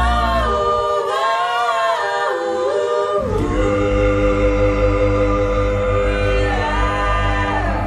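A cappella vocal group singing in close harmony, with a bass voice adding a very low G1 in chest fry. The low note breaks off about half a second in, returns about three seconds in, and is held under a sustained chord.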